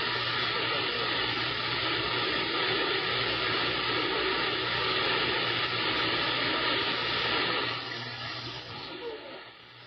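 CB radio static: a steady hiss of band noise from the receiver's speaker on an open channel between transmissions, falling away somewhat after about eight seconds.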